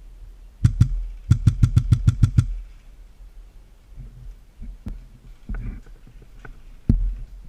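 Airsoft gun firing: a couple of quick shots about half a second in, then a rapid string of about eight shots, followed later by a few single shots.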